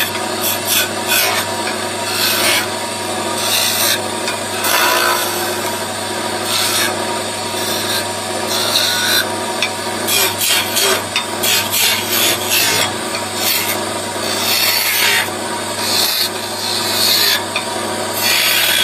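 Wood lathe turning a wooden spindle while a hand-held steel chisel cuts into it: a scraping, rasping cut that comes and goes in strokes of a second or two, over a steady hum.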